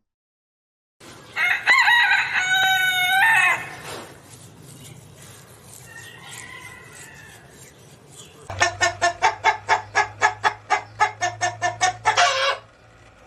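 A rooster crows once, a single long call. After a quieter pause a chicken clucks rapidly, about five clucks a second for nearly four seconds, ending in a longer drawn-out note.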